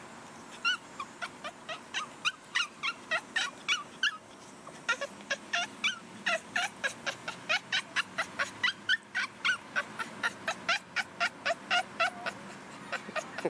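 Boston Terrier "talking": a long run of short, high-pitched yips and whines, about three to four a second, with a brief lull about four seconds in. The dog is asking for her ball.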